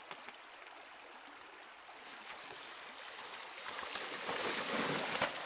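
Mountain bike tyres splashing through a shallow stream ford, the splashing growing louder as the bike comes closer and loudest near the end.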